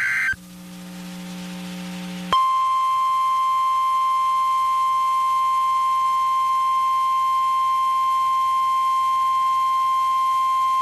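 Emergency Alert System broadcast on NOAA Weather Radio: the tail of a warbling two-tone SAME digital header burst, then about two seconds later the steady 1050 Hz weather radio warning alarm tone comes on and holds for about nine seconds, the signal that a severe thunderstorm warning follows.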